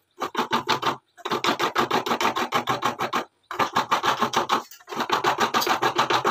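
Coconut being scraped by hand, quick rasping strokes several times a second, in four runs with short pauses between them.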